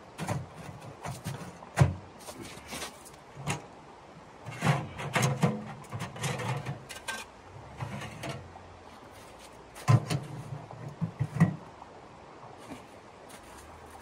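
Sheet-metal camp wood stove being handled and set up, its chimney pipe fitted into the top: a string of sharp metallic knocks, clanks and rattles at irregular intervals.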